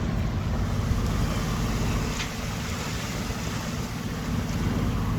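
Sailing yacht's inboard engine running steadily while motor-sailing, under a steady rushing hiss of wind and water.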